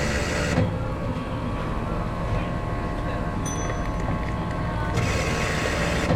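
Drink-bar machine dispensing a hot vanilla drink into a cup: a steady low hum, with a hissing pour that stops about half a second in and starts again about five seconds in.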